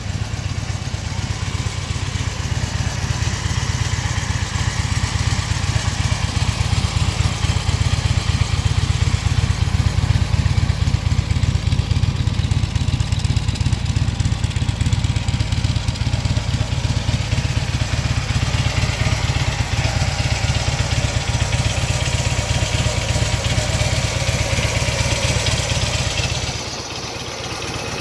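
Harley-Davidson Ultra Classic touring motorcycle's V-twin engine idling steadily with an even, pulsing low rumble; the deep rumble drops away about a second before the end.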